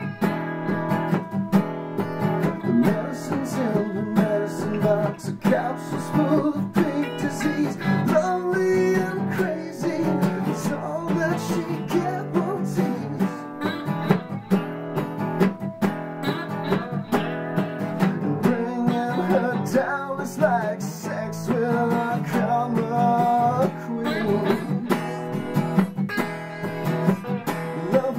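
Acoustic guitar music, strummed in a steady rhythm.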